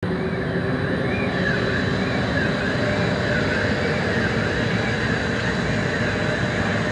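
Tornado simulator booth running: a steady, loud rush of fan-driven wind with a low rumble.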